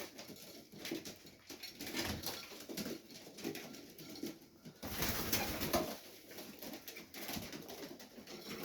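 Domestic Serbian highflyer pigeons cooing in a loft, in low repeated pulses. A brief rustling noise comes about five seconds in.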